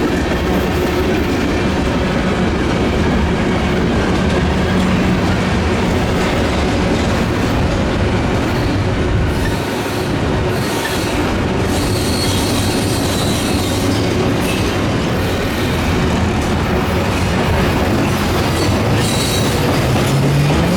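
Freight train rolling past close by: a steady, loud noise of steel wheels on the rails.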